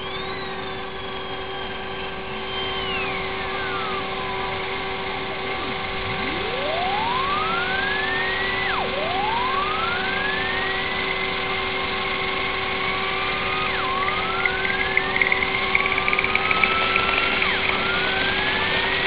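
Home-built rotor-and-coil 'FlowerPower' device running, with a steady electrical hum and hiss. Over it, whining tones glide down, then sweep up and level off several times, each one dropping suddenly before it climbs again. A patter of crackling ticks comes near the end.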